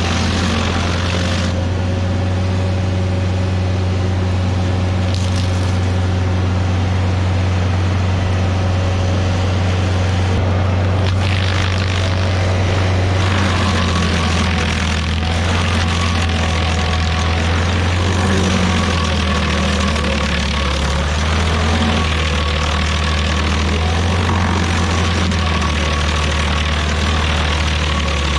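Rayco RG50 stump grinder running at a steady speed while its cutter wheel grinds a stump, with a rougher chipping sound building about eleven seconds in.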